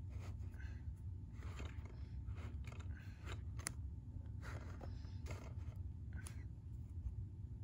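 Faint handling noise: scattered soft scrapes and clicks from a hand moving the camera and touching the plastic DVD cases, over a low steady hum.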